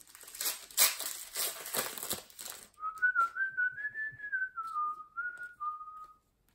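A trading-card pack wrapper crinkling and tearing open for about two and a half seconds, then a person whistling a short wavering tune.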